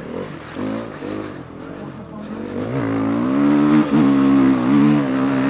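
Motocross bike engine heard on board, revving up and down over the first few seconds, then held at steadier, higher revs for the last two seconds or so.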